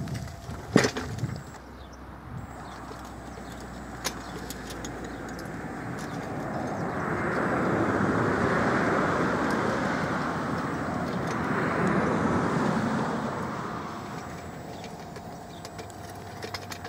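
Road traffic passing: a broad rushing noise swells over several seconds, peaks twice and fades. There is a sharp knock about a second in.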